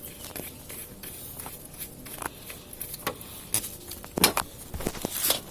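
Scattered light clicks and knocks of objects being handled, with a few sharper knocks in the second half.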